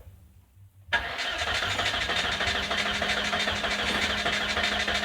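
The 1999 Volvo S40's engine is suddenly set turning about a second in, then keeps going with a fast, even mechanical rhythm and a steady low hum. This is the engine of a car being diagnosed for a misfire at idle.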